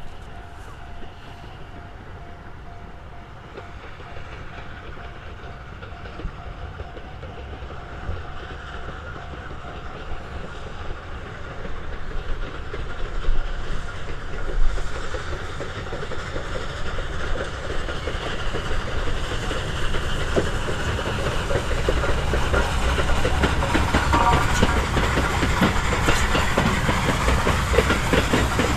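JNR Class D51 steam locomotive hauling its train toward the listener, growing steadily louder, with the clatter of wheels over the rails.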